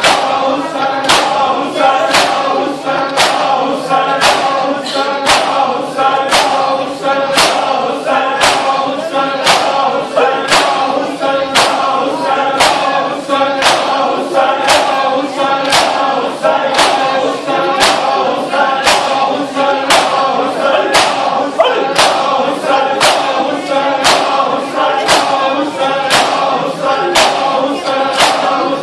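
A crowd of men chanting a noha (Shia lament) together while beating their chests in time (matam). Sharp hand slaps on bare chests land about three every two seconds under the singing.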